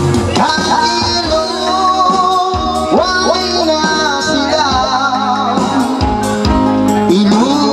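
Male voice singing a Tausug song through a microphone and amplifier, with long gliding held notes, over electronic keyboard accompaniment with a steady drum beat.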